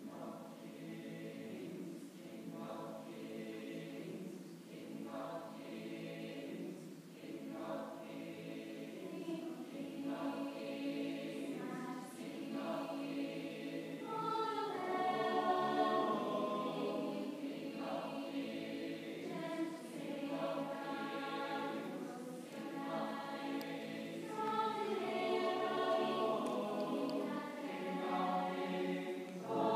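School chamber choir singing in sustained chords, starting right at the beginning and slowly building in loudness.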